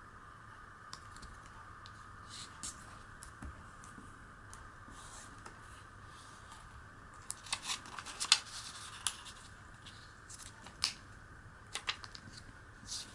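Origami paper handled and folded by hand: crisp paper crackles and clicks as the sheet is turned over and creased, sparse at first and coming in quick clusters in the second half.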